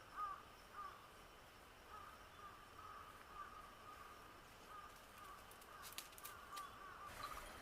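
Faint, repeated short bird calls, with a few sharp clicks about six seconds in.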